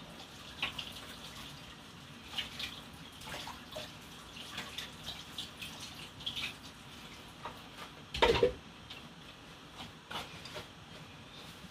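A covered pot of rice and beans simmering on a gas burner, giving irregular small bubbling pops and clicks. One louder knock comes about eight seconds in.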